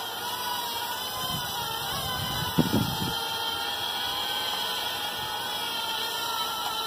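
VA-2080 microdrone's four tiny motors and propellers whining steadily in flight, the pitch wavering slightly. A brief low thump about two and a half seconds in.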